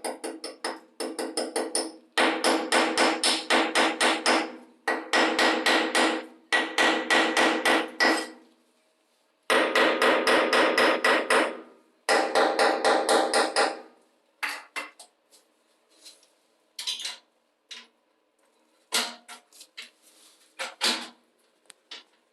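Rapid runs of ringing metallic hammer strikes, about seven or eight blows a second in bursts of one to two seconds with short pauses between them. From about fourteen seconds in, only scattered lighter knocks and taps.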